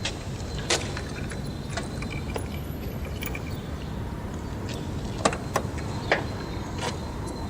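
A steady low rumble with a few sharp clicks or knocks on top: one about a second in, then a cluster of three or four near the end, the loudest about five seconds in.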